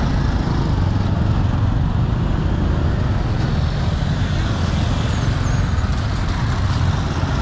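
Street traffic noise: a steady low rumble of passing road vehicles.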